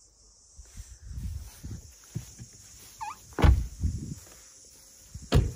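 Handling noise and low rumbling thumps from a handheld phone being carried around a car, with two sharp knocks about three and a half and five and a half seconds in. A short chirp sounds just before the first knock.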